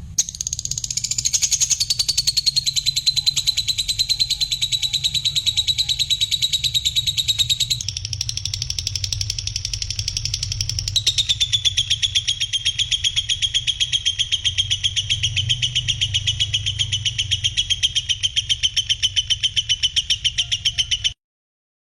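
A bird's high, rapid trill of quickly repeated notes, running unbroken and stopping abruptly near the end. Its pitch jumps about 8 and 11 seconds in. A low hum lies underneath.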